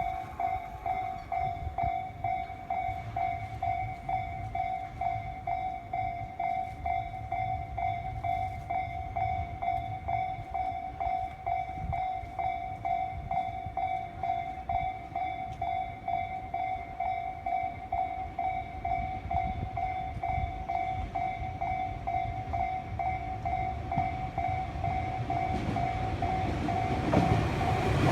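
Japanese railroad crossing's electronic warning bell dinging in a steady, even rhythm over a low rumble of rail traffic. A train's noise grows louder near the end.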